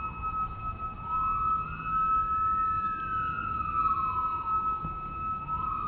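Emergency siren wailing, its pitch rising and falling slowly about once every four seconds, over a second steady, unchanging siren tone.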